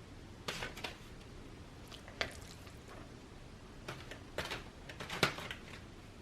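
A kitchen utensil tapping and scraping a few times while the crab and spinach mixture is spooned onto the bread slices, in short sharp clicks with the loudest about five seconds in.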